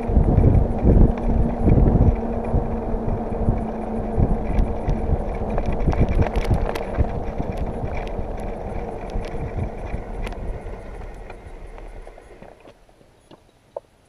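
A bicycle towing a Burley Coho single-wheel trailer rolls along a paved road: tyre noise with rattling knocks and bumps, and wind on the microphone. The noise dies away over the last few seconds, leaving a couple of faint clicks.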